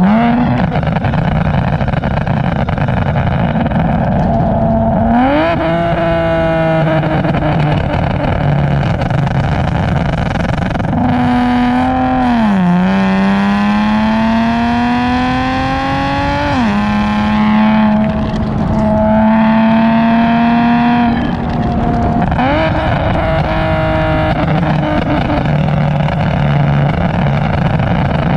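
Infiniti G37 sedan's 3.7-litre V6 heard close to its SOHO 3-inch single-exit exhaust with resonated test pipes while driving at road speed, over steady tyre and wind noise. The engine note steps up about five seconds in, then climbs steadily for about four seconds under acceleration and drops suddenly at a gear change, rising again briefly near the end.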